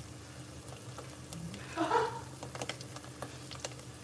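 Marinara sauce of olive oil, tomatoes, garlic and rosemary frying in a pot over high heat: scattered sharp pops and crackles over a low sizzle. A brief voice sound about two seconds in.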